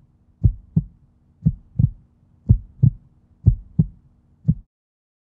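Heartbeat sound effect: paired low lub-dub thumps about once a second over a faint hum, stopping shortly before the end.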